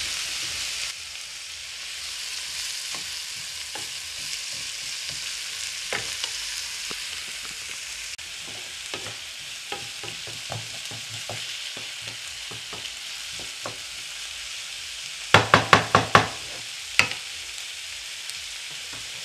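Diced red pepper, onion and garlic sizzling in oil in a frying pan while being stirred with a wooden spatula, with scattered light clicks and scrapes. About three-quarters of the way through come five quick sharp knocks, then one more a moment later.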